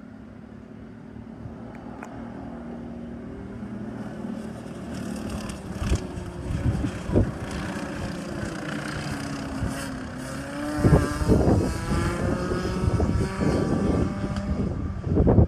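Rotax Max 125cc single-cylinder two-stroke kart engines racing on track, getting louder as a kart comes near. The engine note falls as a kart brakes, then climbs again about ten seconds in as it accelerates away.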